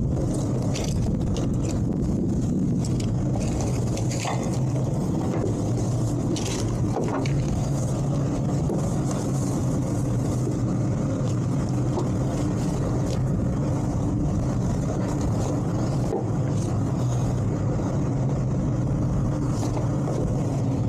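Towboat's engine running steadily at idle while the boat holds position, with a few light clicks in the first several seconds.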